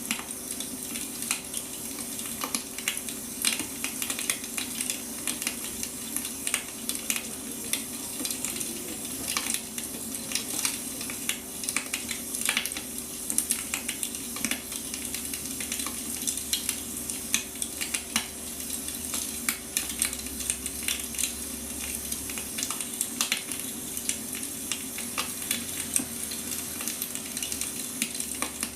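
Wood fire crackling and popping steadily, with dense irregular snaps over a soft continuous hiss.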